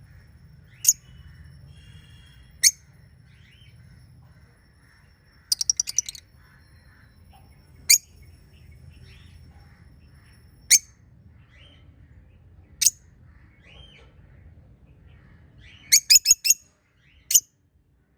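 Small pet parrots chirping: loud, sharp single chirps every couple of seconds, with two quick runs of rapid chirps, one about five and a half seconds in and one near the end, over fainter soft twittering.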